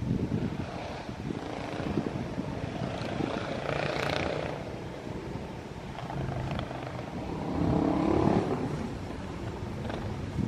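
An engine rumbling steadily, swelling about four seconds in and again, louder, near eight seconds, with a low hum.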